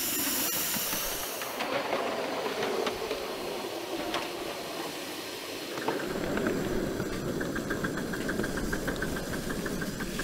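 Miniature 5-inch gauge live-steam locomotive hissing steam, the hiss dying away about a second and a half in. From about six seconds in the train is running with a low rumble and a quick, even ticking, about five beats a second.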